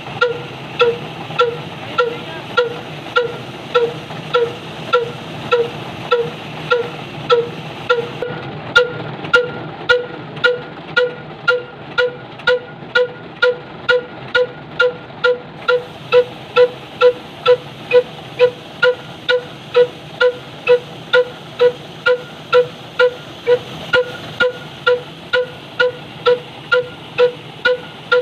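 Slow-speed 'kala' diesel engine (18–20 HP, 300 RPM) running steadily, its tall vertical exhaust pipe giving a slow, even train of sharp puffs, each with a ringing tone.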